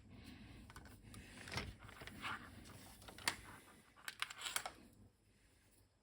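Faint, scattered clicks and short rustles of small parts and cable being handled on a workbench, going nearly silent near the end.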